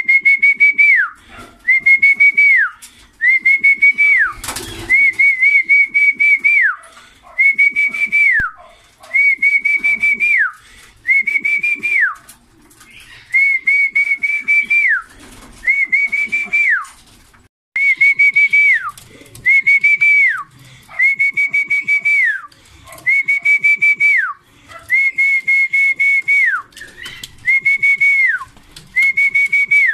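Repeated whistling of the same call, about once every second and a half. Each call is a held high note that drops away at its end. This is the kind of whistle a pigeon keeper uses to call homing pigeons into the loft to feed.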